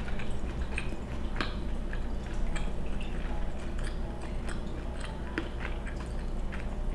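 A person chewing soft food, with irregular wet mouth clicks and smacks.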